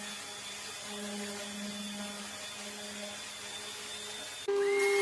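Woodworking power tools running: a steady hiss with a faint hum, then about four and a half seconds in a sudden cut to a louder machine with a steady whine.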